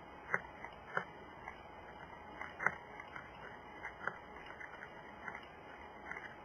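Black bear eating at a bait pile: irregular crunching and clicking, a few small sharp sounds a second, the loudest about a third of a second in, at one second and just before three seconds.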